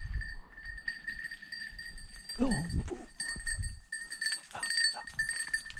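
Hunting dog's collar bell ringing steadily with a high, pulsing jangle.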